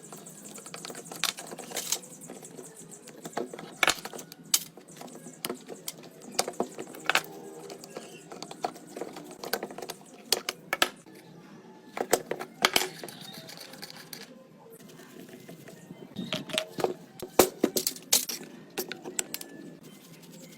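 Irregular sharp clicks, taps and knocks of hand tools on metal parts, of the kind heard while a rusty saw is worked on at a bench, with a lull about two-thirds of the way through.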